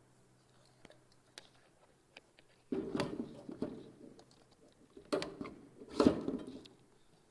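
Clunks and rattles of a MIG wire spool being fitted into a welding machine's wire-feed compartment, in three bursts of handling noise after a few faint clicks, the loudest near the end.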